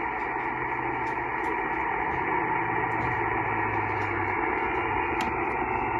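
Shortwave SSB receiver hiss from a Yaesu FT-891 transceiver between transmissions: a steady band of static cut off above about 3 kHz, with a faint low steady tone underneath.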